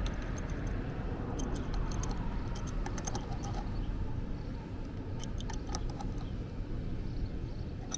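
Adjustable steel wrench tightening a nut on a battery terminal: scattered light metal-on-metal clicks and clinks in small clusters, over a steady low background rumble.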